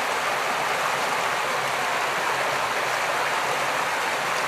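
Steady, even rush of flowing water, like a stream running over rocks.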